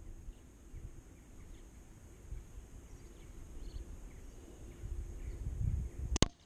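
FX Dreamline Compact Tactical .177 sub-12 ft-lb PCP air rifle firing a pellet near the end: one sharp, very short double crack, over low wind rumble and faint bird chirps.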